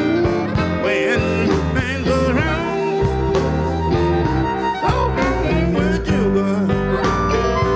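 Electric blues band playing live: bending lead lines over bass and drums.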